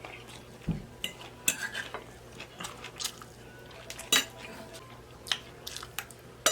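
Metal cutlery clinking and scraping against a plate while eating, in irregular sharp taps about one every half second to second.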